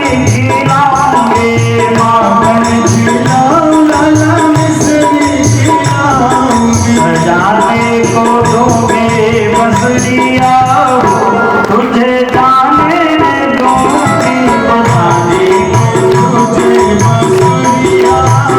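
Devotional kirtan (sankirtan) music: a sustained melody carried over a steady tabla beat and jingling hand percussion.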